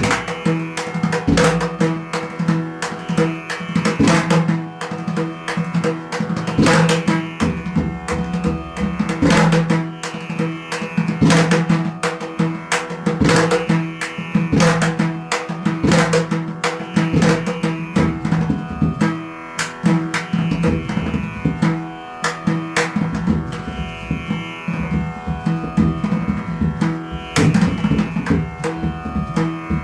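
Instrumental music in an Indian classical style: hand-drum strokes over plucked strings and a steady drone.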